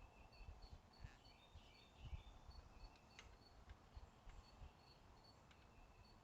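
Near silence: faint high chirping repeating in the background, with a few soft clicks and low knocks from handling.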